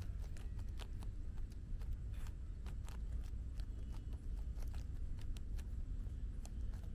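A puppy digging in dry, loose soil with its front paws: quick, irregular scratches and scrapes of claws and dirt, a few each second, over a steady low rumble.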